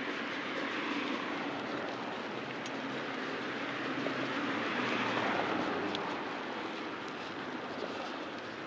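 Steady rush of street noise and wind heard while riding a bicycle through city streets, swelling about a second in and again around five seconds, as with passing traffic or gusts.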